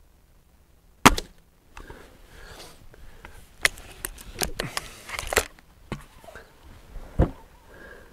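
A Gamo Swarm Magnum Gen II .177 break-barrel air rifle fires once about a second in: a single sharp report with no supersonic crack from the heavy H&N Baracuda Match pellet. The barrel is then broken open and cocked, a run of clicks and mechanical clunks ending with the barrel snapping shut about five and a half seconds in, and a further thump follows near seven seconds.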